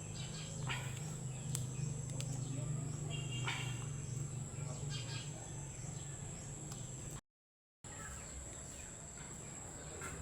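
Birds chirping a few times over a steady low hum. The sound cuts out briefly to silence about seven seconds in.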